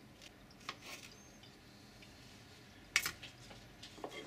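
Kitchen knife cutting cherry tomatoes on a plastic chopping board: a few light taps, with one sharper knock about three seconds in.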